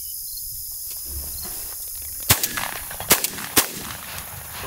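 Shotgun fired three times in quick succession a little over two seconds in, the last two shots closer together than the first two.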